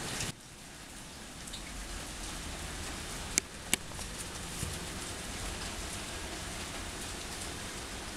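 Steady rain falling, with two sharp clicks a little over three seconds in.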